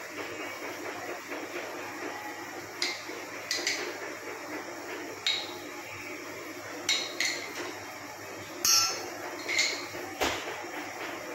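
Spoon clinking and tapping against a glass coffee jar and a stainless steel saucepan as instant coffee is spooned into the pan. About nine sharp, irregular clinks begin a few seconds in, the loudest a little ringing one about three-quarters of the way through, over steady background noise.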